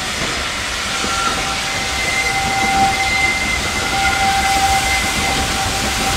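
0-4-0 saddle-tank steam locomotive and its train approaching, growing slowly louder. A thin, steady high-pitched tone rings over the running noise from about a second in.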